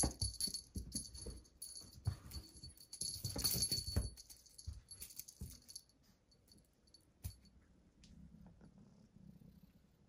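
Cat wand toy jingling and rattling as a Persian kitten bats at it, a busy run of small clicks and bell-like ringing that thins out about halfway through. Near the end the kitten's faint, low, steady purring comes in.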